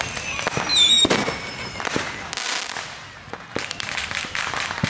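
Fireworks going off: many sharp bangs and pops, with high whistling tones in the first second and the loudest blast just after one second in. A dense run of crackling pops follows near the end.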